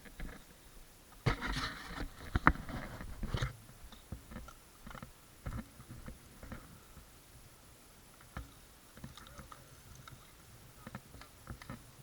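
Camera handling noise: rustling and crackling with sharp clicks, loudest for about two seconds near the start, then only scattered faint clicks.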